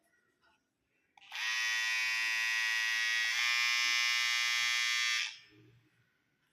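HTC electric hair trimmer switched on and running for about four seconds, a steady high-pitched motor buzz that shifts slightly partway through, then switched off.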